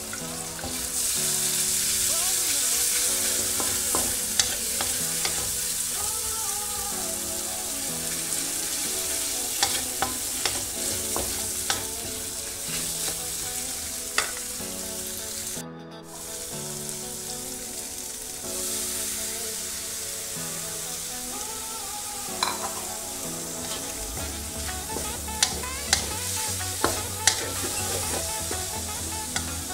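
Flat rice noodles, bean sprouts and prawns sizzling as they are stir-fried in a hot pan, with the spatula clicking against the metal, several sharp strikes near the end. The sound cuts out briefly just past halfway.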